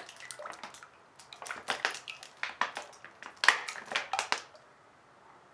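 Irregular clicks and clinks of small steel parts being handled and set down on a hard surface, stopping about four and a half seconds in.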